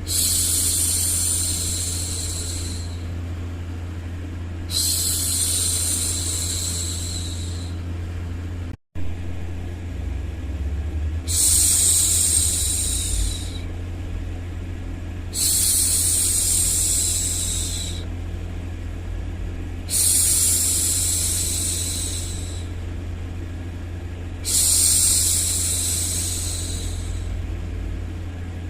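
A woman's long hushing "shhh" for soothing a baby, repeated about every four to five seconds, six times, over a steady low white-noise rumble. The sound cuts out completely for a moment about nine seconds in.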